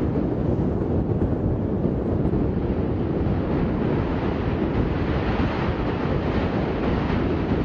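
Loud, steady roaring noise, mostly low, with heavy wind buffeting the microphone.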